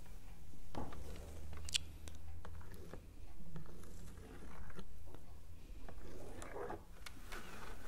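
Plastic stylus scratching and tapping on a magnetic drawing board as circles and lines are drawn, in short irregular strokes.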